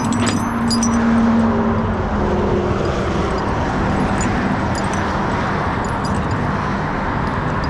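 Freeway traffic passing close by: a steady rush of tyres and engines, with one engine's drone shifting in pitch during the first few seconds.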